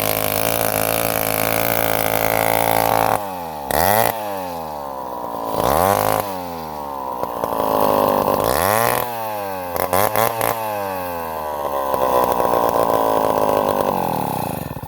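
Chainsaw engine running hard, its pitch dipping and climbing back several times as the throttle is eased and opened. It dies away right at the end.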